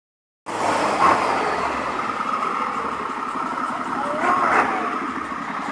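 Longtail boat's inboard car engine running steadily under way, with a fast, rough firing pulse. It starts about half a second in.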